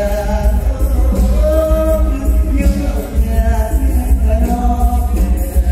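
Live mor lam music in the toei dance style, amplified, with a heavy steady bass and a held, wavering melody line over it.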